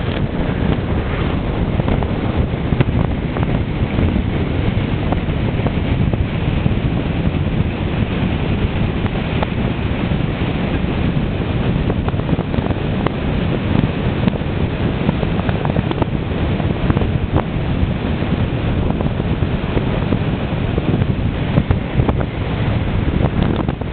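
Steady, loud wind noise buffeting the microphone of a vehicle moving along a road at speed.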